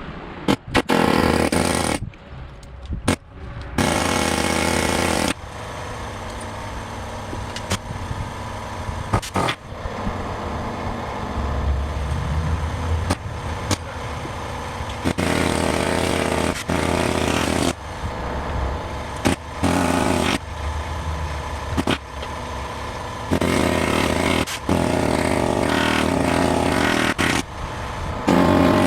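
Pneumatic air hammer chiselling through the steel bead wires of a tractor tire, run in repeated bursts from about a second to several seconds long with short pauses between, the longest burst near the end. A steady low hum runs underneath.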